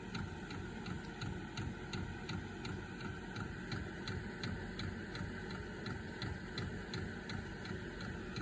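Diesel air heater on its first start: the fuel dosing pump ticking evenly about three times a second over the steady run of the heater's fan motor, as the pump bleeds air from the fuel line and the burner comes up to light.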